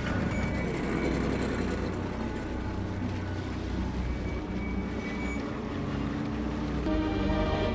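Motorboat engine running with the wash of water as the boat moves across a lake, with a low film score underneath that swells near the end.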